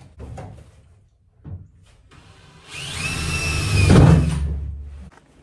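A few light knocks, then a cordless drill runs for about two and a half seconds with a steady whine and stops suddenly, drilling a small pilot hole through the camper wall.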